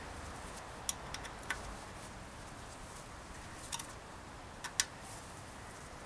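A few sharp little metal clicks and ticks from a hex key working a bolt on a bicycle's rim-brake arm, in clusters about a second in and again near the end, over a low steady hiss.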